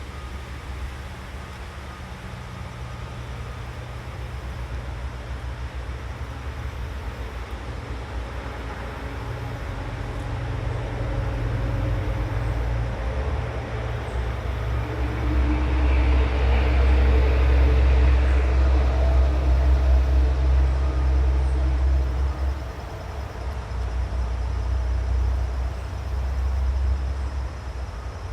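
Low rumble of a passing motor vehicle that builds over several seconds, is loudest about two-thirds of the way through, then falls away with a smaller swell near the end.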